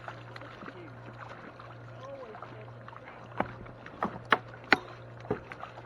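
Five sharp knocks on a kayak, in quick succession in the second half, while a hooked brook trout is being landed, over a steady low hum.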